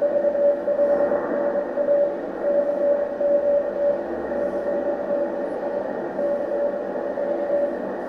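Morse code (CW) received on a Yaesu FT-920 HF transceiver: a single mid-pitched tone keyed on and off in dots and dashes over a steady band of static hiss, with fainter tones of other signals underneath.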